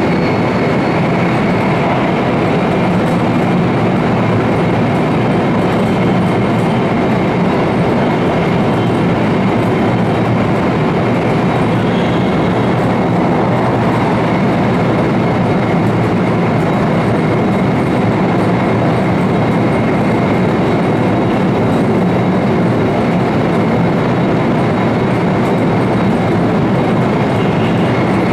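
Steady running noise of an E4 Series double-decker Shinkansen travelling at speed, heard inside its deck vestibule: a dense, even rumble with a faint steady high tone over it.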